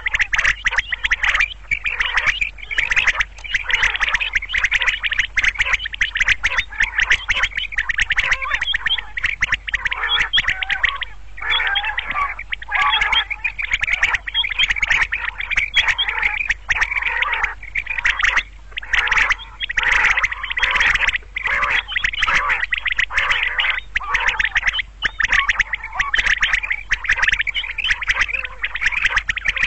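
Quail calling continuously, a dense run of rapid, short chirping notes, with brief breaks about a third and about two-thirds of the way in.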